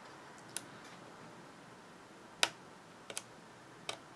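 Five small sharp clicks, two of them close together about three seconds in, as a craft tool and fingers pick the backing film off adhesive dots on a paper card.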